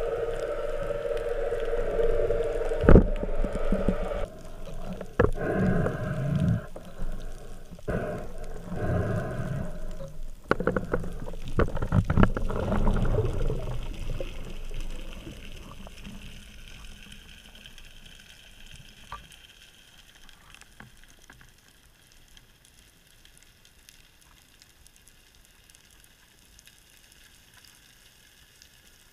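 Muffled underwater sound picked up through a camera housing on a speargun: a low hum for the first few seconds, then a run of knocks and thumps as the diver and gun move, fading after the middle to a faint steady underwater hiss.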